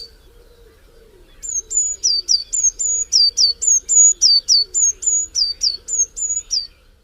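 A songbird singing a fast series of high, clear whistled notes, many of them dropping in pitch, about four a second. The song starts about a second and a half in and stops just before the end.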